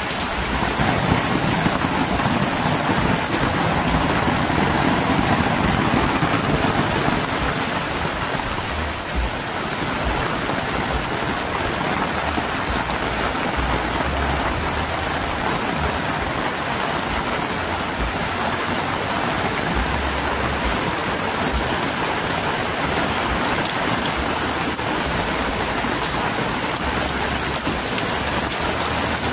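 Heavy rain falling steadily, a dense, even hiss of drops on roofs and wet ground, with low rumbles coming and going.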